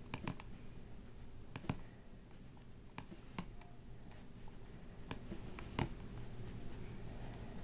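Microsoft Bluetooth mouse clicking: about half a dozen short, sharp clicks at irregular intervals, the firmest about two seconds in and about six seconds in, over a faint steady hum.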